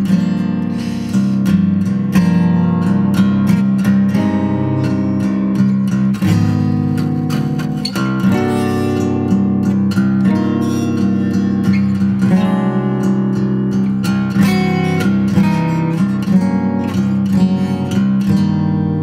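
Solo acoustic guitar playing: quick picked notes over low notes that ring on steadily.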